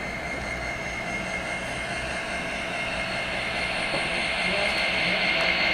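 Model freight train rolling past close by: a steady rolling hiss and whine from the hopper cars' wheels on the track, growing louder toward the end as the locomotive draws near.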